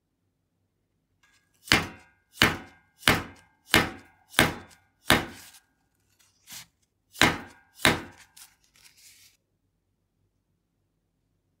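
A run of sharp knocks, each with a brief ringing tone. Six come evenly, about one and a half a second, then a faint one, then two more, and a short soft rustle after them.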